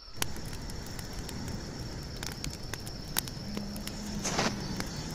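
Night ambience of a wood campfire crackling with scattered sharp pops, over a steady high cricket trill and a low rushing background. A low steady hum comes in past the middle, and a short hissing flare of noise stands out about four seconds in.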